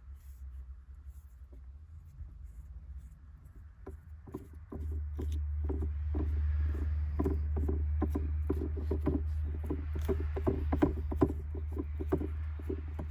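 Stock shift knob of a Subaru WRX being twisted off its threaded shifter shaft by hand: quick, irregular rubbing clicks begin about four seconds in. Under them is a low hum that gets louder about five seconds in.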